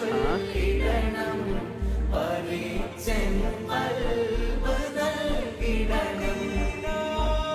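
Music with sung vocals over a deep bass pulse that comes back about once a second.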